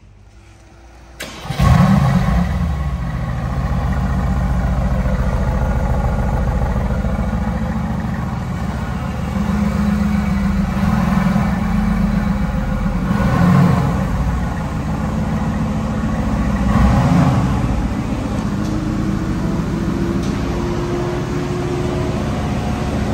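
Mercedes-AMG GT's twin-turbo V8 starting up with a loud flare about a second and a half in, then settling to a steady idle, with two short throttle blips about thirteen and seventeen seconds in.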